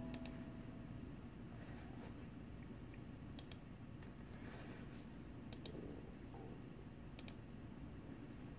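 Clicks from a MacBook Pro trackpad: four pairs of short, sharp clicks a couple of seconds apart, over a steady low background hum.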